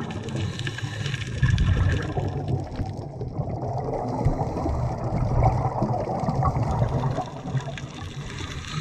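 Muffled rumbling water noise picked up underwater by a camera in its housing, with the higher hiss dropping away about three seconds in.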